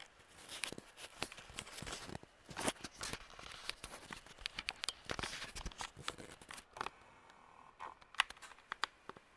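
Handling noise: scattered light clicks, taps and rustles as the fan and its parts are moved and handled up close. They are busiest in the first six seconds and thin out later.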